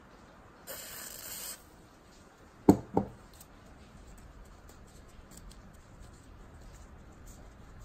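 A short hiss from an aerosol can sprayed through a red extension straw into the jack's head, lasting under a second. About a second later come two sharp knocks close together, the loudest sounds, followed by faint handling and rubbing of the metal part.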